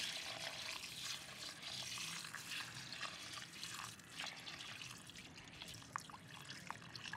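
Water poured in a steady stream into an aluminium pot of dry basmati rice, splashing onto the grains to cover them for soaking. The pouring sound is strongest at first and grows quieter as the water rises over the rice.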